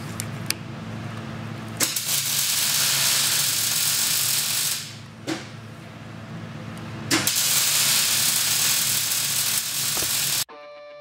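Hand-lever bench shear cutting sheet steel: two cuts of about three seconds each, heard as a loud, harsh hissing scrape of metal being sheared, each starting with a sharp click. A steady low workshop hum runs underneath, and music cuts in just before the end.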